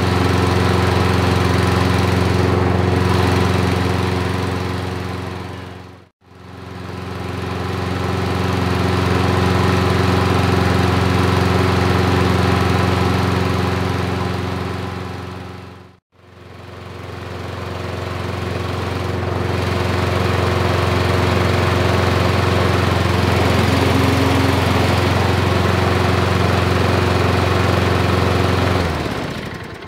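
Reconditioned Toro 22-inch self-propelled lawnmower's single-cylinder engine running steadily at an even speed on its test run; the sound fades away and back in twice. Shortly before the end the engine winds down and stops.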